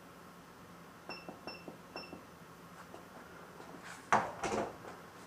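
Three short electronic beeps from a wheel balancer's keypad as the rim sizes are entered, followed about four seconds in by a sharp knock and a second, smaller clatter.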